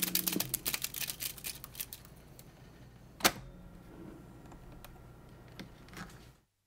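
A rapid run of light clicks and rattles that thins out, one sharp click a little past three seconds in, and a few faint ticks, before the sound cuts off suddenly into silence near the end.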